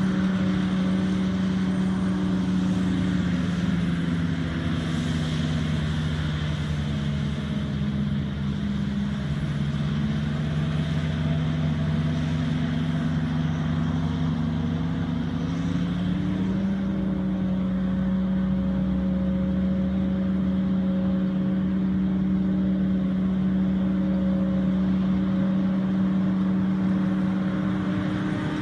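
John Deere 7750 self-propelled forage harvester chopping standing maize for silage, its engine and chopping drum a steady drone, with the tractor pulling the trailer alongside. The engine pitch drops a little about three seconds in and comes back up about halfway through.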